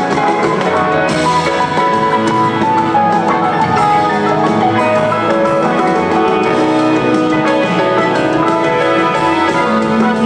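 Live rock band playing mid-song: electric guitars, acoustic guitar, bass, drum kit and piano together, loud and continuous, heard from the audience.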